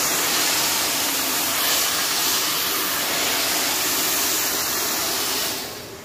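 Hand-held hair dryer with a concentrator nozzle blowing steadily during a straight blow-dry. The sound fades away near the end.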